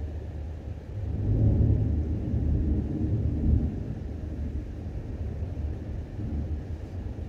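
Low rolling thunder rumbling from a thunderstorm, swelling about a second in and then slowly dying away.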